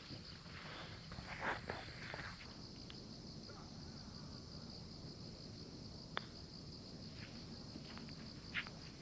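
Steady high-pitched chirring of insects, with a few soft scuffs early on and a single sharp click about six seconds in.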